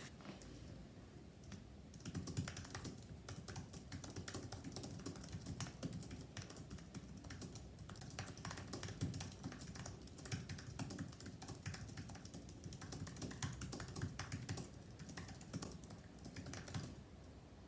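Fast, continuous typing on a computer keyboard: rapid irregular key clicks that start about two seconds in and ease off near the end.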